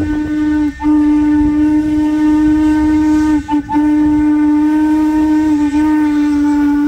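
Steam locomotive whistle blowing long, steady blasts, broken off briefly about a second in and twice in quick succession halfway through.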